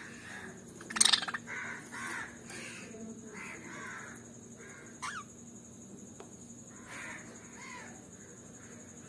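Green Fischer's lovebirds giving a string of short, harsh chirps, with one loud, shrill call about a second in and a quick sliding note about five seconds in.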